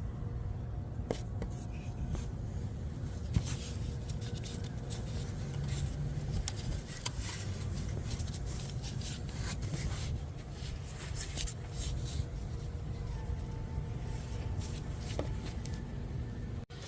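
2008 BMW 335i's straight-six engine idling with a low, steady rumble, with scattered light clicks and knocks of handling over it.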